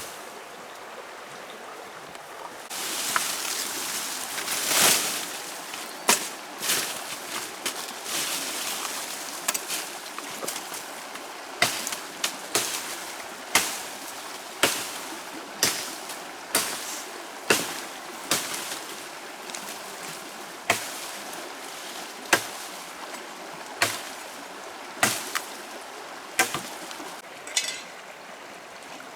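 Repeated sharp blows of a hand tool on wood, about one a second, as in chopping while building a shelter. A rustling hiss runs under the first several strokes.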